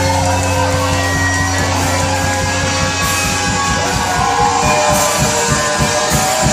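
Live rock band playing loud with electric guitars, bass and drums. A low note is held for about the first two seconds, then fast, steady drum hits take over beneath the guitars.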